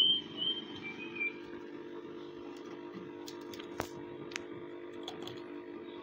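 Steady low electrical hum from the repair bench, with a few short high chirps in the first second or so. Around the middle come a few small, sharp clicks of metal tweezers working on a phone circuit board.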